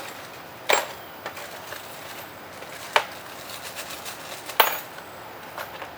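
Sharp clicks and knocks of metal parts being handled as a bicycle disc brake caliper and its mounting adapter are fitted over the brake rotor. There are three loud knocks a second or two apart, with lighter ticks between them.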